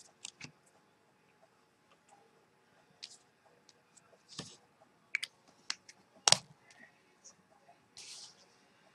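Art materials handled on a desk: scattered light clicks and taps, a much sharper knock about six seconds in, and a short scraping sound near the end.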